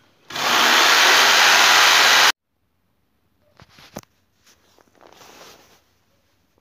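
Electric jigsaw cutting gypsum plasterboard: a loud, steady rush of noise for about two seconds that cuts off abruptly. Near silence follows, with a few faint clicks.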